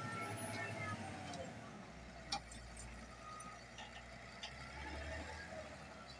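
Caterpillar 966F wheel loader's diesel engine running as it raises its bucket and tips a load of sand and rock into a dump truck's bed. From about two seconds in a low rumble joins it as the load pours in, with a sharp knock or two.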